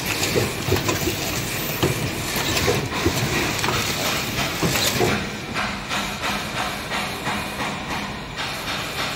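Plastic cup packing machine running: rapid clattering knocks and clicks from the cup stacks and mechanism over a steady hiss. After about five seconds the clicks settle into a more even ticking with a low hum.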